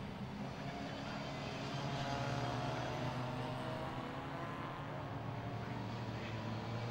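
Engines of classic pre-1966 racing saloons, Minis among them, running hard past the trackside microphone. Several engine notes overlap and rise and fall, with one climbing slowly a second or so in.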